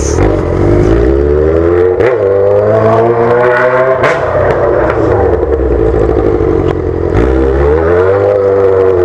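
Yamaha XJ6's inline-four engine on a straight-pipe exhaust with no muffler, ridden at low speed. Its pitch rises and falls as the throttle is opened and closed, and three short sharp knocks come about two, four and seven seconds in.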